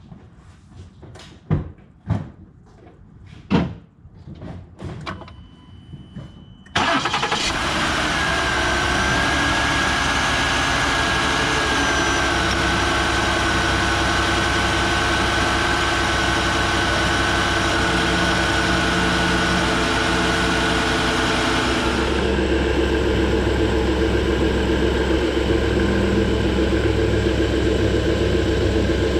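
A few knocks and clicks, then the 2013 Ford Explorer's 3.5-litre V6 starts about seven seconds in and idles steadily, with a thin high whine over it that stops about three-quarters of the way through. This is the first start after a new belt tensioner pulley, run to check that the serpentine belt tracks.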